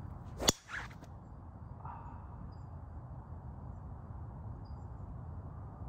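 Golf driver swung at a teed ball: a short whoosh of the club, then the sharp crack of the club face striking the ball about half a second in.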